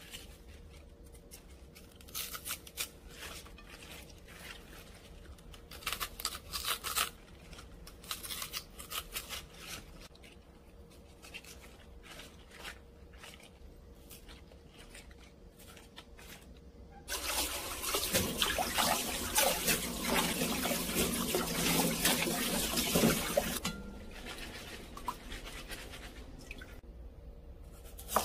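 Crisp crackling as fresh bok choy stalks are pulled apart and handled by hand, in a few short bursts. About 17 s in, a steady rush of running water for about six seconds, the loudest part. A knife strikes a cutting board once at the very end.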